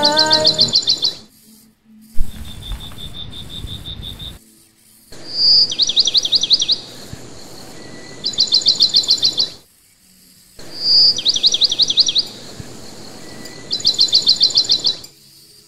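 Bird chirping in short rapid high-pitched trills, each about a second long, coming in repeated bursts with abrupt silent gaps between them, over a faint background hiss.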